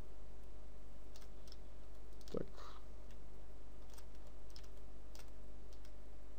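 Scattered computer mouse and keyboard clicks, a few spread irregularly, over a steady low hum, with a short low thump about two and a half seconds in.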